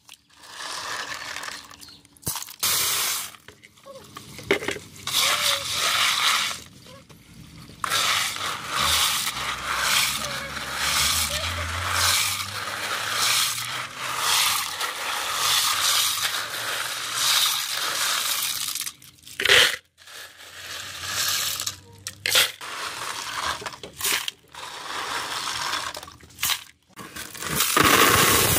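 Clams being washed by hand, with water splashing and shells clattering against each other in a basin. Near the end, a load of clams is poured into a plastic basin with a loud clatter.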